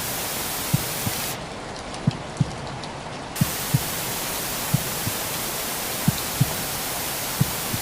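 Baby-sleep white noise: a steady rain hiss under a slow recorded heartbeat, double low thumps (lub-dub) about every 1.3 seconds. About a second and a half in, the upper part of the hiss drops away for two seconds, then returns.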